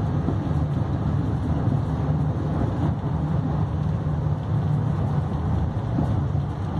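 A car on the move, heard as a steady low rumble of engine and road noise.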